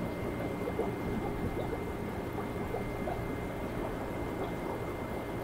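Steady bubbling and trickling of aquarium water from the tanks' filtration, with a faint, steady high tone underneath.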